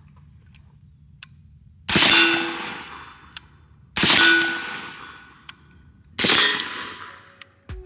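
Three suppressed rifle shots, about two seconds apart, from an 11.5-inch BCM short-barrelled AR-15 fitted with a Surefire suppressor. Each shot is followed by a brief metallic ring, which fits a hit on a steel target.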